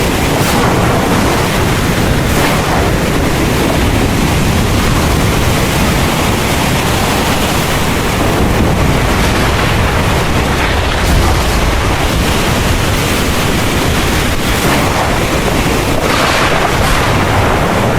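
Heavy rain falling, a steady dense hiss over a continuous low rumble.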